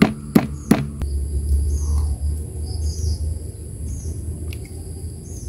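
Three knocks of a stone pestle pounding boiled jengkol beans in the first second, then a low rumble, with faint bird chirps.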